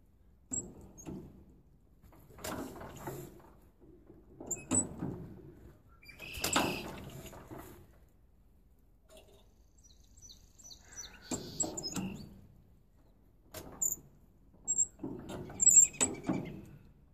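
Allis-Chalmers 20-35 tractor's four-cylinder engine being hand-cranked in about seven separate efforts, each a second or so of knocking and scraping with pauses between. The engine does not catch.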